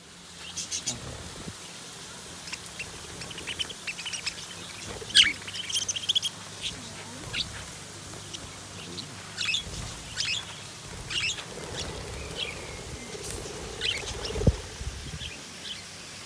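A flock of budgerigars chirping in short, scattered, high calls as they feed together on the ground. A single dull knock sounds near the end.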